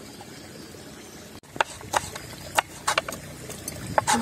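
Fresh ginger being pounded with a stone pestle in a stone mortar, heard as a run of sharp, irregular knocks, about eight in the last two and a half seconds.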